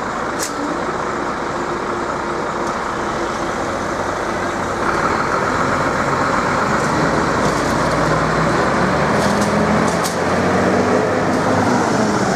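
Road traffic: cars driving off and passing over the level crossing, with engine and tyre noise that grows louder about five seconds in.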